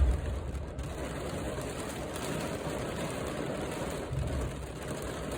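Steady rain falling. A short low rumble comes at the very start and again about four seconds in.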